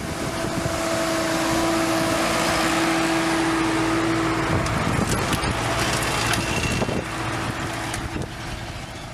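Sonalika 110 HP four-wheel-drive tractor running under load as it pulls a 32-disc harrow through dry soil: a dense mechanical rumble with a steady tone over it that breaks off about halfway through and returns faintly later. The sound fades out near the end.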